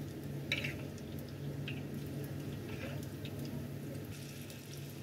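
Hot frying oil in a wok bubbling and sizzling softly as a wire spider strainer of battered, deep-fried cauliflower florets is held above it to drain, with oil dripping back into the wok. A few light clicks are heard, the clearest about half a second in.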